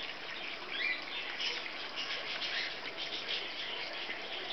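Outdoor ambience with small birds chirping: many short, high chirps over a steady light hiss.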